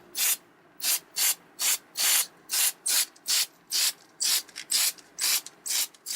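Hand sanding: short back-and-forth rubbing strokes, about fifteen of them at two to three a second.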